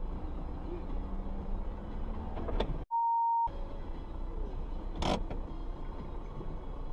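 Steady low road and engine rumble of a car in city traffic, recorded by a dashcam. A sharp knock comes about two and a half seconds in, then a half-second steady bleep cut into the sound. Another sharp knock comes around five seconds.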